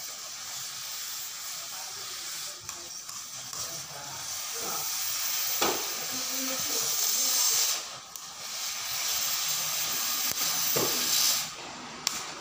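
Gas cutting torch hissing steadily as it cuts out a steel excavator bucket bushing. It grows louder, drops off briefly about eight seconds in and then resumes, with a couple of sharp cracks along the way.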